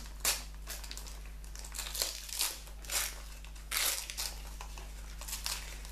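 Gold gift-wrap paper crinkling and tearing in a series of short, separate rustles as a small wrapped present is opened by hand.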